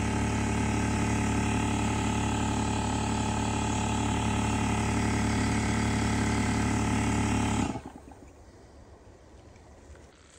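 A machine running with a steady, even hum that cuts off suddenly about three quarters of the way through.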